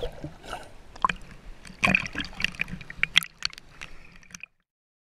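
Water sloshing and splashing around a camera at the sea surface, with irregular sharp splashes; it cuts off to silence about four and a half seconds in.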